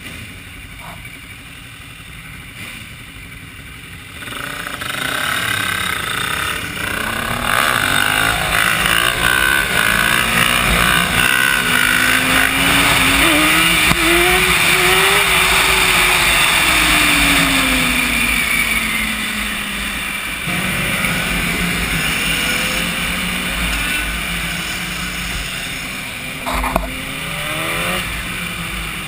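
Sportbike engines idling quietly, then about four seconds in a motorcycle pulls away hard from the stop, its engine note climbing as it accelerates and falling away again as it slows. A brief sharp knock near the end.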